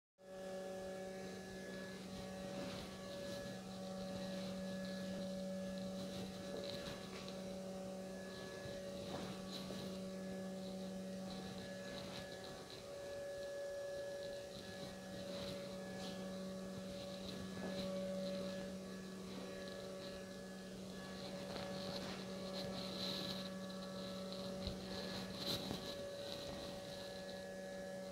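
Steady electrical hum made of a low tone with several higher steady tones above it, with faint scattered clicks.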